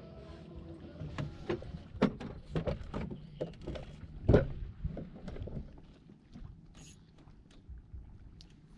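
Knocks, clunks and clatter of a person moving about and handling gear aboard a small fiberglass boat, with one heavy thump about four seconds in; it quietens to a few light ticks after about six seconds.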